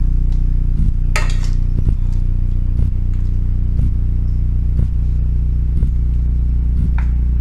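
Steady low machine hum with a faint tick about once a second, and a brief scraping noise about a second in.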